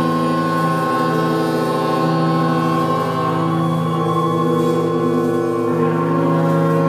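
Live experimental electronic music: a drone of several held tones with a slow wavering shimmer, some of them stepping to new pitches every second or two.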